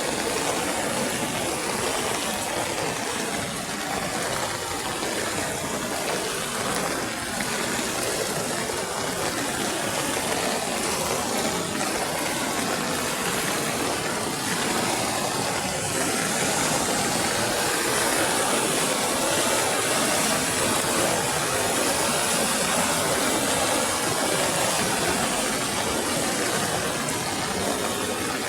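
Water rushing steadily, a continuous even roar that barely varies.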